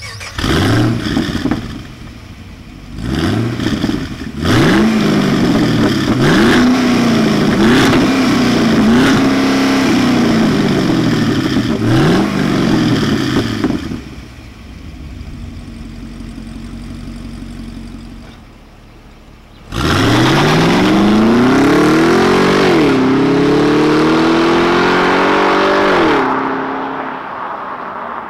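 The Holden Commodore SS V Redline Ute's 6.2-litre LS3 V8 exhaust is blipped repeatedly from idle, with rev rises and falls over the first half, then settles to a steady idle. About twenty seconds in it revs up hard as the ute accelerates away, its six-speed automatic upshifting twice, and the sound fades off as it leaves.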